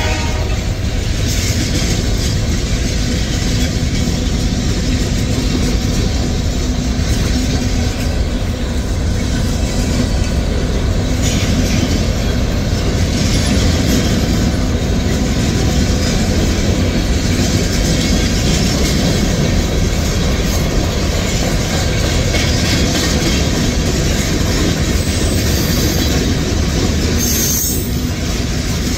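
Freight cars of a mixed freight train rolling past at a grade crossing, their wheels running on the rails in a loud, steady rumble with no letup.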